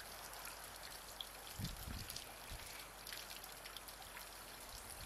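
Faint steady outdoor hiss, like distant running water, with a few soft low thumps about one and a half to two and a half seconds in.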